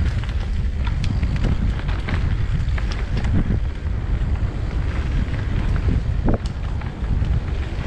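Wind buffeting a GoPro's microphone during a fast mountain-bike descent on a 2023 S-Works Enduro, with rapid rattles and knocks from the bike and its tyres over rough ground.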